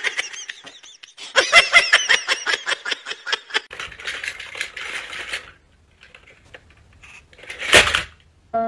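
Laughter: a quick run of ha-ha pulses lasting about two seconds, then fainter noise and one short loud burst near the end.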